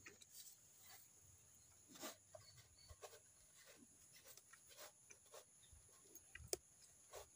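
Hand milking a cow: faint, irregular squirts of milk from the teats, about two a second, with one sharper squirt near the end.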